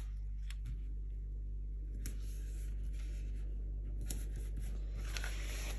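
Faint rustling and a few soft taps of fingers peeling a paper gem sticker and pressing it onto a planner page, over a steady low hum.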